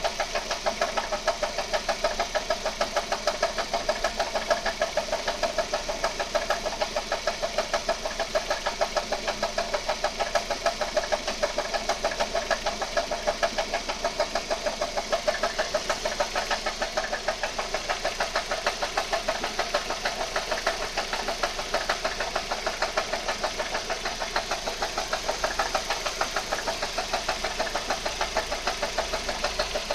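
1.8T four-cylinder turbo petrol engine running at a steady speed with a fast, even knocking from the engine, the unexplained knock the owner is trying to track down.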